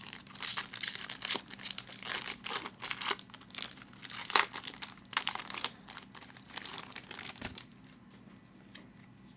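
A trading-card pack wrapper being torn open and crinkled by hand, with cards being handled. The crackling is busy for about six seconds, then dies down.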